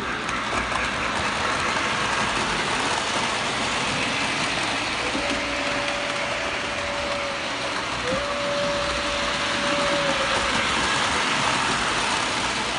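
Lionel toy trains running on three-rail metal track, a steady rolling rumble and rattle. Two long steady tones sound over it, about five and eight seconds in.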